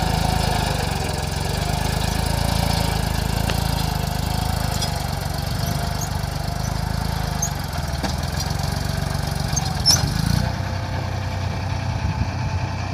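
Eicher 480 tractor's diesel engine running steadily under load while it pulls a two-bottom plough through dry soil. A single short click sounds about ten seconds in.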